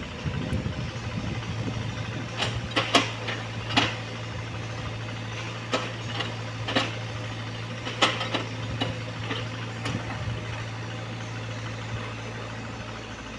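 Komatsu PC75UU mini excavator's diesel engine running steadily while digging, with a series of sharp knocks and clanks from the bucket and arm working the clay bank.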